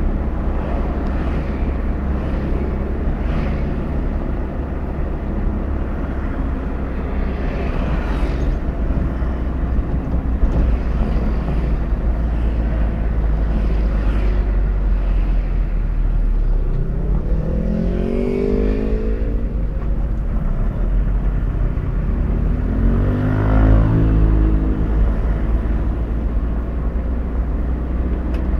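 Car driving, heard from inside the cabin: a steady low engine and road rumble, with an engine note rising in pitch twice, around two-thirds of the way through and again a few seconds later.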